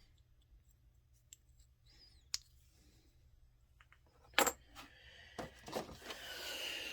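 Small metal hand tools clinking as they are handled and set down: a few faint ticks, a sharp click a little over two seconds in, then a louder metallic clatter about four and a half seconds in, followed by more clinks and a rustle of handling.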